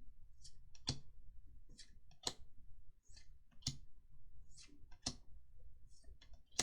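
Trading cards being handled, with sharp clicks and snaps: a stronger one about every second and a half and fainter ones in between.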